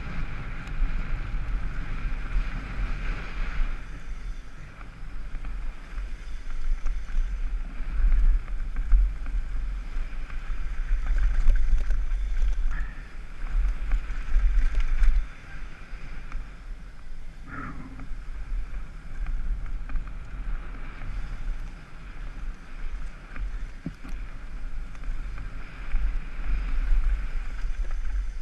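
Wind buffeting a helmet-mounted camera's microphone during a fast downhill mountain-bike descent: a steady low rumble that swells and fades with speed, over the rush of tyres on a dry dirt and gravel trail. A short higher-pitched sound cuts through a little past the middle.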